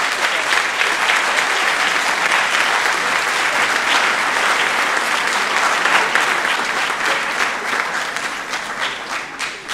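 Audience applauding, a dense crowd of clapping that swells in the first second and thins out near the end into scattered separate claps.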